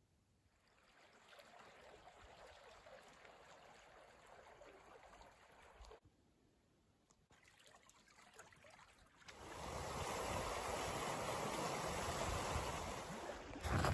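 Shallow creek water running over rocks, a steady rush that comes in loudly about two-thirds of the way through. Before that there is only a faint hiss.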